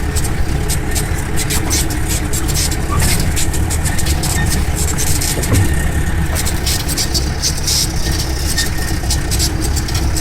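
Jeep engine running steadily as the jeep drives a rough hill track: a constant low drone with frequent short clicks and rattles over it.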